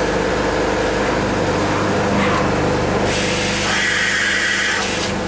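CNC machining centre running with a steady hum made of several steady tones. About three seconds in, a loud hiss switches on and cuts off sharply about two seconds later.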